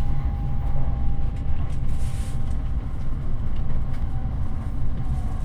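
Running noise heard inside an N700S Shinkansen car: a steady low rumble with a faint steady hum above it.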